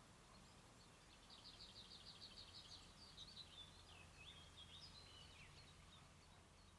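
Faint songbird song: a rapid, even trill of about a dozen notes, followed by a run of varied, twisting notes, over a quiet rural background.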